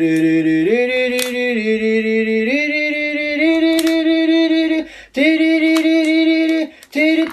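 A man's voice holding a long sung note that steps up in pitch in a few stages and breaks off twice. A few sharp snaps of rubber bands being stretched onto a pineapple sound over it.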